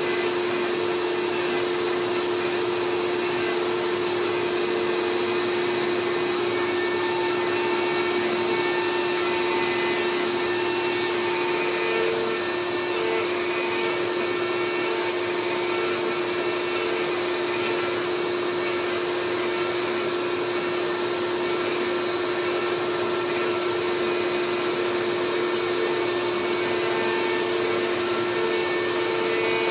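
CNC router running steadily while milling a carbon fiber sheet: the DeWalt router spindle's steady whine over the rushing air of the dust-collection vacuum.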